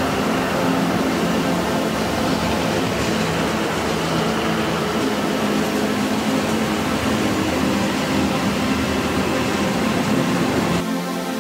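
Two coupled diesel locomotives passing close by, their engines running with a steady, loud drone. Near the end it gives way to music.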